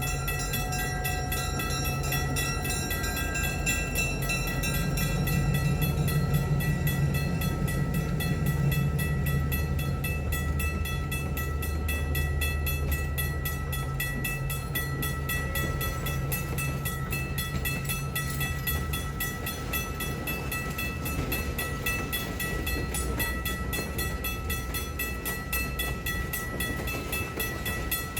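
Excursion train led by locomotive 573 running past, its engine a steady low drone that grows louder about five seconds in and eases off after about thirteen seconds.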